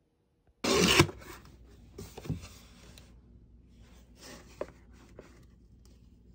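Tangerines being handled in a cardboard box: a loud rustle about half a second in, then softer rustling and a few light knocks as the fruit is moved and picked up.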